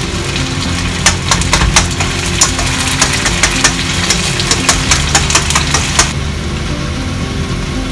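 A slotted spatula scraping and knocking against a black iron pan as a thick tomato and sorghum sauce is stirred over a sizzle. There are sharp clacks several times a second from about a second in until about six seconds, after which the sizzle and scraping go quieter.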